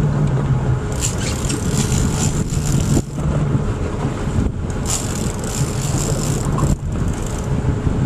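Boat engine running steadily, a low drone, with a high hiss that comes and goes over it.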